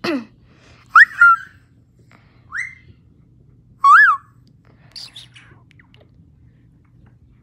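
White-bellied caique giving a series of loud, short whistled calls, some sweeping up and some rising then falling, with a double call about a second in; the calls stop a little after five seconds in, the last ones fainter and harsher.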